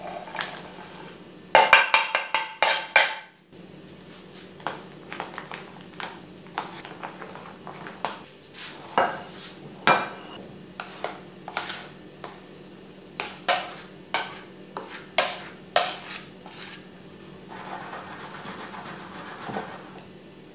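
A thin spatula knocking and scraping against a ceramic dish while chocolate chunks are mixed into cake batter. A quick run of ringing knocks comes about two seconds in, then scattered clicks and taps against the dish, and a stretch of scraping near the end.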